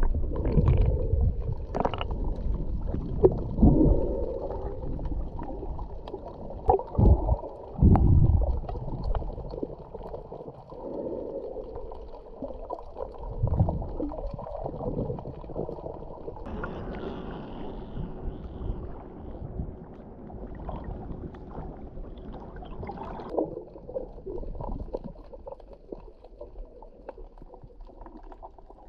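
Muffled underwater water noise heard through a submerged camera: low gurgling and sloshing with several heavy swells in the first eight seconds or so, then a quieter steady wash.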